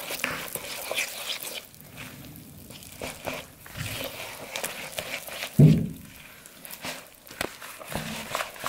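A wire whisk stirs thick flour-and-water dough in a plastic bowl, making irregular clicks and scrapes as the wires hit the bowl. One louder thump comes a little past halfway.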